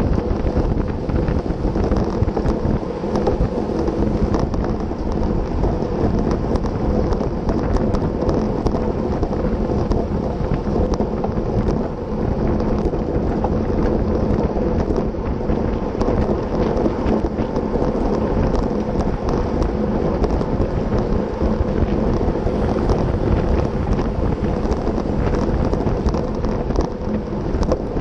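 Heavy, steady wind noise buffeting the microphone of a bicycle-mounted camera at about 30 mph, over the rolling rumble of road-bike tyres on asphalt.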